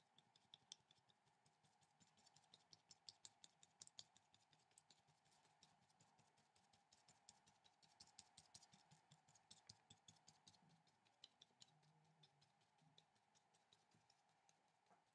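Faint, quick, irregular taps of a paintbrush dabbing on watercolour paper, several a second, over a faint steady hum.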